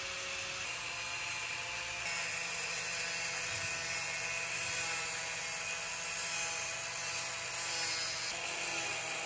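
Compact electric angle grinder with a thin cut-off wheel cutting through a carbon fiber sheet: a steady high whine over a dense hiss.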